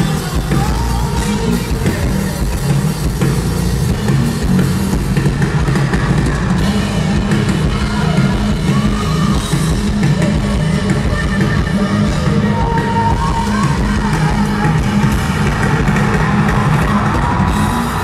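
Live rock band playing loudly through a festival sound system, heavy in the bass, with a female vocalist singing into a microphone.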